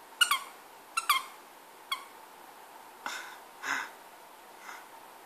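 A plush elephant squeaky toy squeaked by a Coton de Tulear biting on it: five short, sharp squeaks in the first two seconds, two quick pairs and then one more. About three seconds in come a few softer, breathy puffs from the dog.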